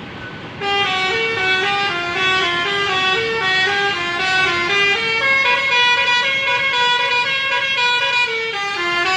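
A bus's telolet horn, a multi-tone air horn, playing a long drawn-out melody of quickly changing notes. It starts suddenly about half a second in and keeps going.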